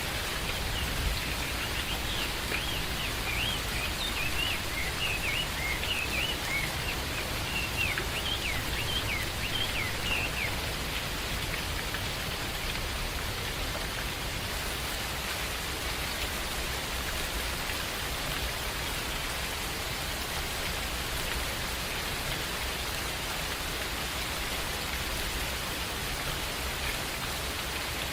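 Steady rain, with a bird chirping in quick, short notes over it for roughly the first ten seconds.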